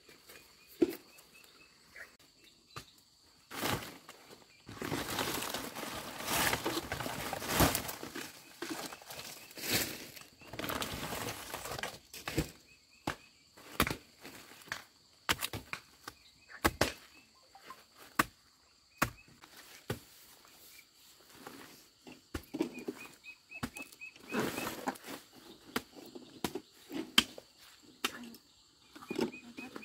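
Rustling of grass, stalks and dry banana leaves, with footsteps and scattered sharp knocks and snaps as banana trunks are handled and cut. Louder stretches of rustling come a few seconds in and again near the end. A faint steady insect buzz sits in the background.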